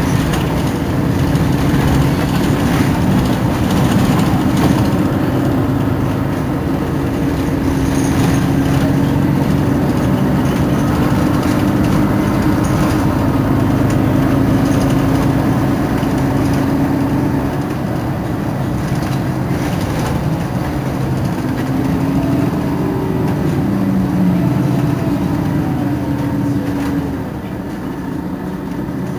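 Mercedes-Benz Citaro G C2 articulated city bus's engine running with a steady low drone. Its note shifts a few times, and it gets a little quieter near the end.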